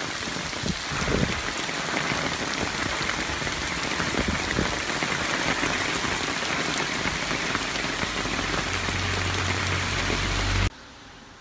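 Heavy typhoon rain pouring down on trees and leaves: a dense, steady hiss. A low rumble builds near the end, then the sound cuts off suddenly.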